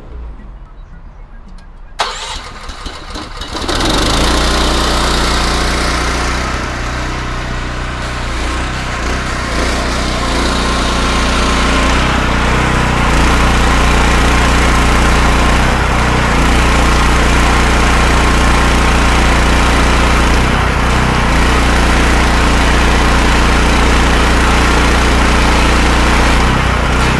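A pressure-washing machine's engine starting about two seconds in, catching within a couple of seconds, then running steadily and loud, with a steady hiss over it.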